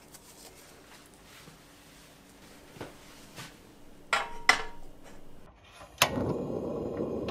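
A square metal griddle pan set down on a gas stove with two ringing metal clanks. About two seconds later the burner's igniter clicks and the gas flame lights with a steady rushing hiss.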